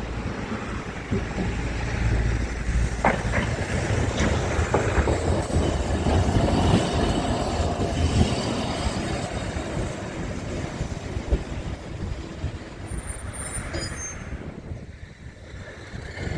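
A rail vehicle passing close by: a heavy low rumble that builds and then fades, with a couple of sharp wheel clicks early on and a brief high-pitched squeal near the end.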